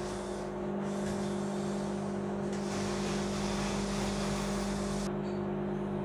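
ACP Menumaster commercial microwave oven running a heating cycle: a steady hum from the transformer and cooling fan. The oven is test-heating a glass of water after a magnetron replacement.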